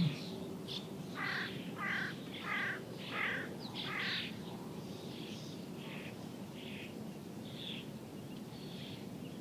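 Birds calling outdoors: a run of about five clear, evenly spaced calls in the first few seconds, then fainter calls over a steady background.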